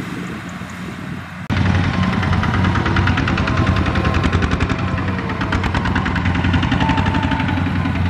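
Rice combine harvester running steadily while it cuts. About a second and a half in, the sound jumps louder and a fast, even mechanical rattle from the cutting header and its conveyor rides over the engine's drone.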